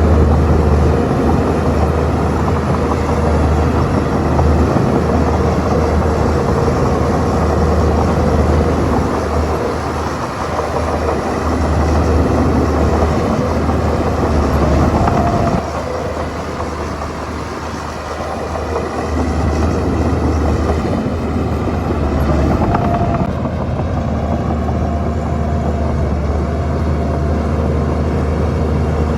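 Shantui crawler bulldozer's diesel engine running steadily under load. The level eases off for a few seconds past the middle, then picks up again.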